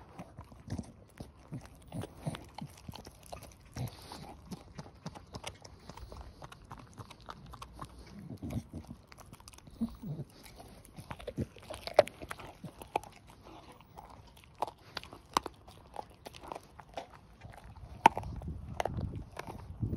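Staffordshire bull terrier gnawing a raw pork trotter: irregular crunches and clicks of teeth on skin and bone throughout, with a sharp crack about twelve seconds in and another near the end.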